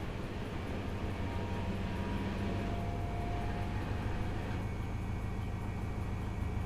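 Front-loading washing machine running, a steady mechanical rumble and hum from the turning drum and motor.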